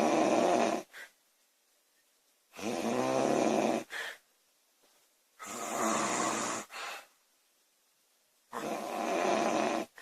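A woman snoring loudly: four long snores about three seconds apart, each followed by a short second catch of sound.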